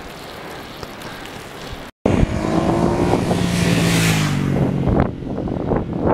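Steady wind rush on the microphone. Then, after a short cut, a motor vehicle passes close by, its engine note falling in pitch as it goes past, with a swell of wind and tyre hiss.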